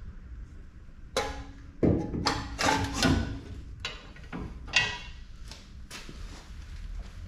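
A string of sharp metallic clanks and knocks, about a dozen over four to five seconds, some ringing briefly.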